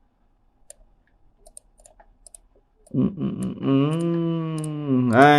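Faint computer mouse clicks for about three seconds. Then a man's voice comes in loudly, humming or singing long, held notes rather than speaking.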